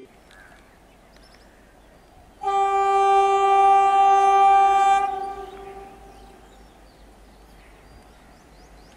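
Alco diesel locomotive's air horn blowing one long steady blast, starting abruptly about two and a half seconds in and fading away after about two and a half seconds, over a faint low rumble.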